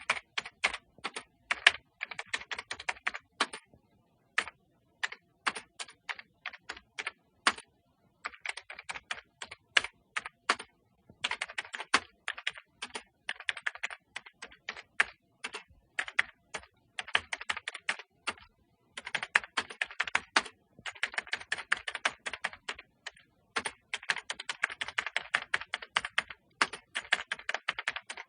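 Computer keyboard being typed on in quick runs of key clicks, broken by short pauses.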